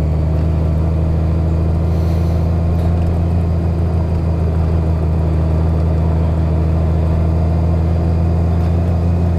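2018 Honda Gold Wing's flat-six engine running steadily as the motorcycle rides slowly along a dirt road, an even low drone with no revving.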